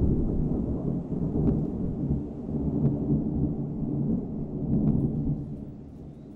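Rolling thunder: a low, continuous rumble that slowly dies away, fading noticeably near the end, with a few faint ticks.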